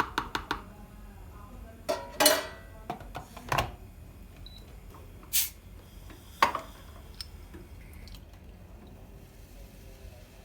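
Kitchenware being handled: a series of clinks and knocks of dishes and utensils, a few of them briefly ringing. They are busiest in the first four seconds and give way to a couple of single knocks before going quiet.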